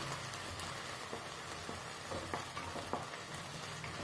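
Onions and ginger-garlic paste sizzling softly in oil over a low flame, stirred with a wooden spatula that scrapes and clicks against the pan every so often.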